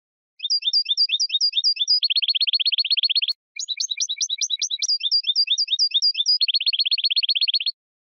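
European goldfinch singing two phrases, each a run of repeated high chirps that ends in a fast trill, with a brief break between them.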